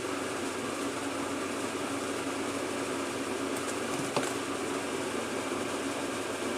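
Steady fan-like background hum of the room, with one small click about four seconds in.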